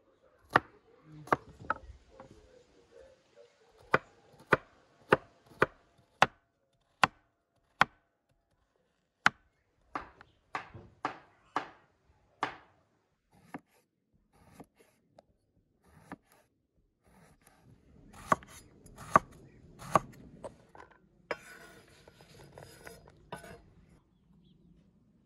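Kitchen knife chopping onion on a wooden cutting board: separate sharp strokes, mostly one or two a second, with a lull about halfway. Near the end there are a few seconds of scraping against the board.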